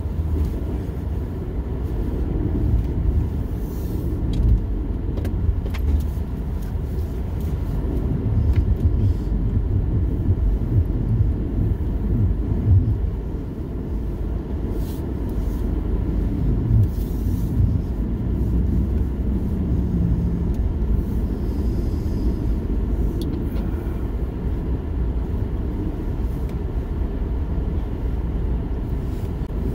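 Pickup truck being driven, heard from inside the cab: a steady low rumble of engine and road noise, with occasional faint clicks and rattles.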